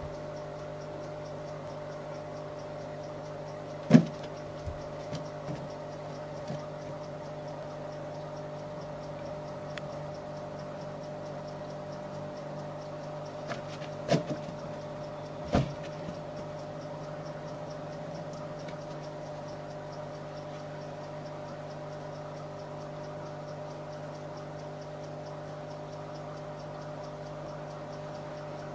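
Inflated rubber balloon being batted around by a kitten: a few sudden thumps and taps, the loudest about four seconds in and two more near the middle, over a steady background hum.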